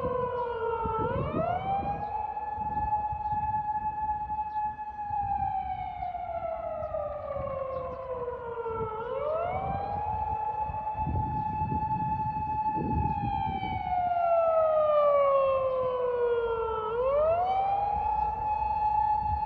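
A siren wailing in slow cycles: each cycle rises quickly, holds one steady tone for about four seconds, then slides slowly down, repeating about every eight seconds.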